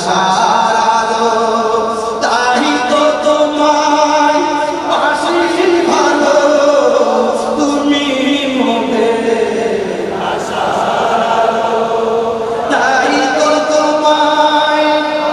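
A man singing a Bangla naat, an Islamic devotional song, into a microphone in long, drawn-out phrases with ornamented held notes.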